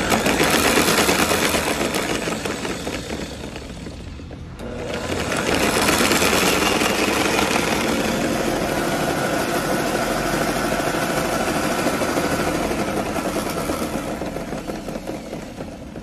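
Electric motor of a 3D floor polisher with vacuum cleaner running under test. Its sound sinks to a dip about four seconds in, comes straight back up and runs steadily, then drops off near the end. The owner traces its cutting out to a loose toggle switch inside.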